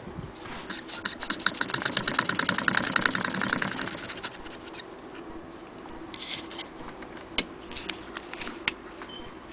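Antique Willcox & Gibbs hand-crank chain-stitch sewing machine stitching through leather: a rapid, even clicking that builds up and then dies away about four seconds in. After it come a few scattered clicks and rustles.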